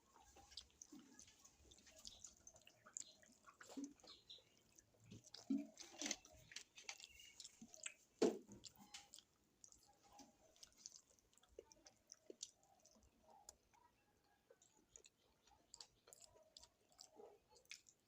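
A person chewing food close to the microphone, with many small wet mouth clicks and smacks; the sharpest is a single click about eight seconds in.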